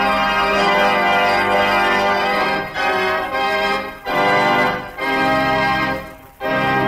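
Organ music bridge of held chords that change several times, with short breaks between them. The sound fades to a brief pause about six seconds in before a new chord comes in.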